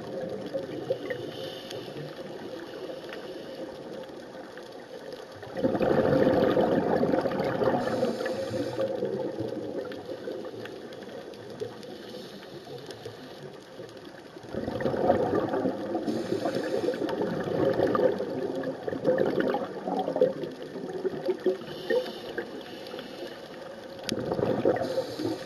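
A scuba diver breathing through a regulator underwater: long, loud stretches of bubbly rushing from exhaled air, about every nine seconds, with quieter underwater hiss between and short hisses of inhaled air.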